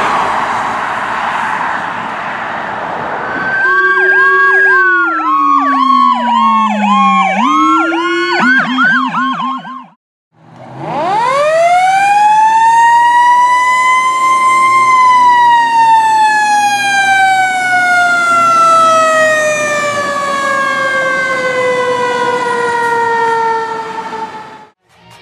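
Road traffic noise, then from about three seconds in emergency-vehicle sirens: a fast repeating yelp over a siren tone sliding down in pitch, cut off abruptly around ten seconds in. After a short gap one siren winds up for about four seconds, then winds slowly down for about ten seconds.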